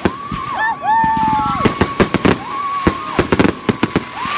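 Fireworks going off: rapid pops and bangs in quick succession, with a high whistling tone that wavers and dips in pitch running under them.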